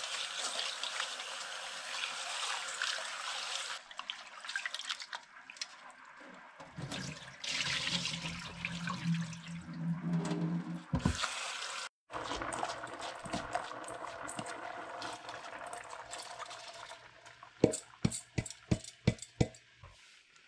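Kitchen tap water running into a stainless-steel bowl while hands swish and rub the rice in it to wash it, then the rinse water poured off into the sink. Near the end, a quick series of sharp knocks.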